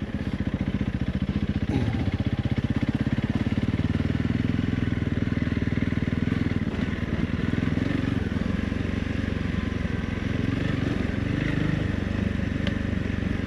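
Honda CRF 300 Rally's single-cylinder four-stroke engine running at low, fairly steady revs with small throttle changes as the motorcycle is ridden along a rocky trail.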